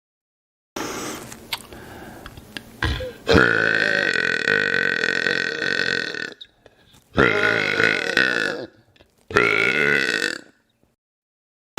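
A man burping three times: one long, steady-pitched burp lasting about three seconds, then two shorter burps.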